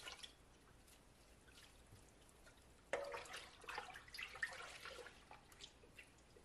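Faint drips and small splashes of hot dye water in a stainless steel stock pot as wet yarn skeins are lifted and the acid-dye bath is stirred. They come mostly from about three seconds in, after a near-silent start.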